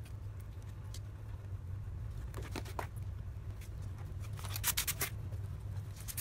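Cardboard being handled and slid over a cardboard work surface: a few light taps and scrapes, then a quick run of rubbing strokes near the end, over a steady low hum.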